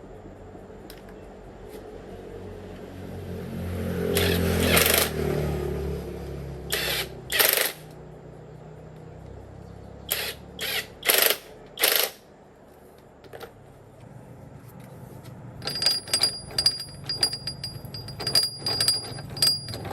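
Workshop repair noises: a brief low mechanical hum that rises and fades, several short hissing bursts, then a quick run of sharp metallic clinks and taps with a ringing tone, like metal tools striking metal parts.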